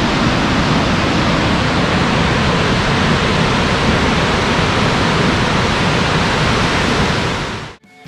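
A large waterfall rushing in a loud, steady roar; it cuts off suddenly near the end.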